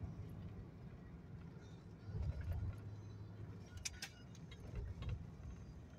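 Low rumble of a truck driving slowly, heard from inside the cab, swelling briefly about two seconds in, with a few light clicks about four seconds in.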